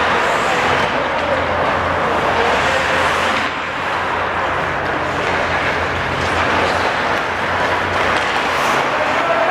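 Ice hockey play heard in a rink: a steady wash of skates carving and scraping the ice, with stick noise and a low hum underneath.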